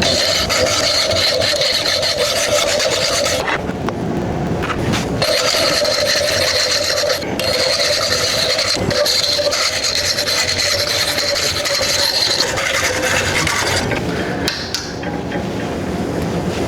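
Hand hacksaw cutting through a 3/4-inch octagonal bar of 1080 carbon steel clamped in a vise: steady back-and-forth rasping strokes with a ringing metallic tone, broken by a couple of brief pauses.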